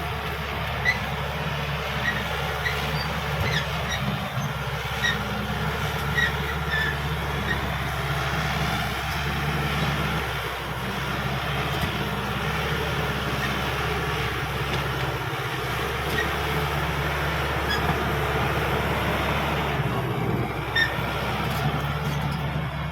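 Caterpillar D5K XL bulldozer working, its diesel engine running steadily, with short squeaks and clanks from the steel tracks now and then.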